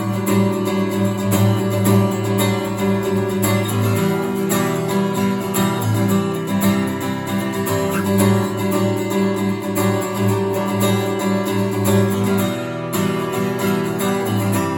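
Bulldog D-4 solid-wood dreadnought acoustic guitar, strung with Ernie Ball Rock & Blues 10/52 strings, strummed in a steady rhythm with chords ringing, a dry tone.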